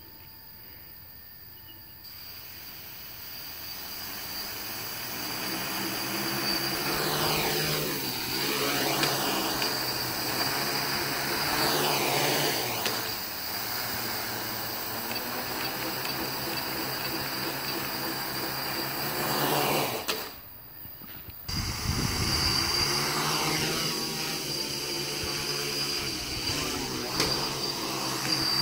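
Four Emax MT2213 935kv brushless motors spinning 10-inch (1045) propellers on a DJI F450 quadcopter, throttling up from idle and lifting into a low hover: a steady buzzing hum whose level builds over the first few seconds. The hum dips briefly about twenty seconds in, then comes back at full strength.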